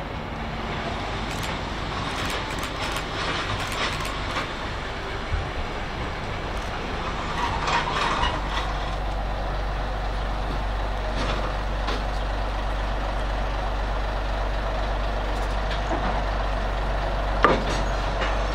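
Tka7 rail truck's diesel engine running steadily as it creeps up to the passenger car, with scattered squeals and clicks, and its low hum grows stronger about halfway through. A single sharp metallic clank comes about a second before the end.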